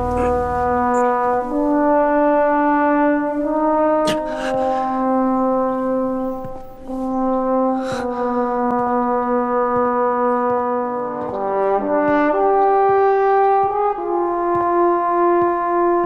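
Dramatic film score: a slow brass melody, horn-like, of long held notes, each lasting a second or two and stepping up and down in pitch.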